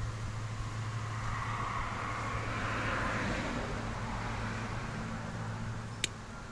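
A road vehicle passing by: a steady low hum with its noise swelling to a peak about halfway through, then fading. Near the end comes a single sharp click from the hand crimper closing on the terminal.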